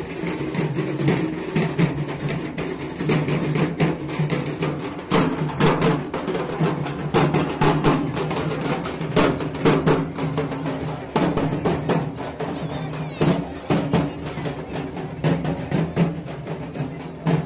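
Dhak drums, the large Bengali barrel drums, beaten rapidly with sticks in a fast, driving rhythm over a steady low drone.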